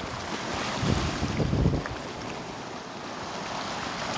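Sea waves on a rocky shore, a steady wash, with wind buffeting the microphone in low rumbles during the first two seconds.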